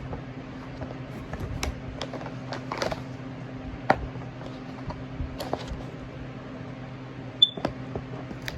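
Clicks and rustling of a smoke alarm being worked out of its packaging over a steady low hum. About seven seconds in, a single short, high-pitched chirp from a smoke alarm, which the owner takes as a sign that its battery may be low.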